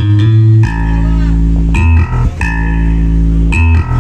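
Bass-heavy music with plucked bass and guitar notes played loud through a stacked home-spec sound system of bass cabinets and a horn, during a sound check. Deep held bass notes change pitch every second or so.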